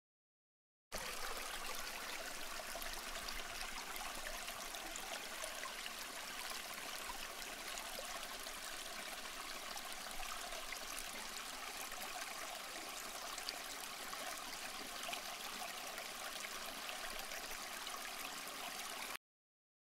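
Small stream flowing: a steady, even babble of running water that starts abruptly about a second in and cuts off abruptly near the end.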